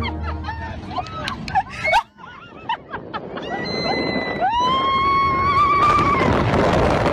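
A rider's short cries, then a long high scream that rises and holds a wavering note about four and a half seconds in, over a rushing wind noise that grows louder near the end.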